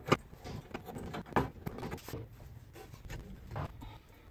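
Irregular metal knocks, clicks and scraping as an Austin-Healey Sprite's cylinder head is rocked and worked loose by hand on the block. The sharpest knock comes just after the start, another about a second and a half in.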